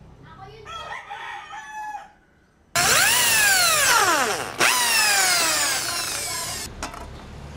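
A rooster crows in the background. Then an electric drill starts abruptly, boring through a PVC pipe, its whine falling in pitch as the bit bites. It stops for a moment, restarts sharply and falls again, then cuts off near the end with a couple of clicks.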